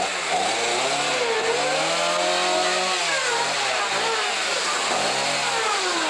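Chainsaw engine running and being revved, its pitch dipping and rising again several times.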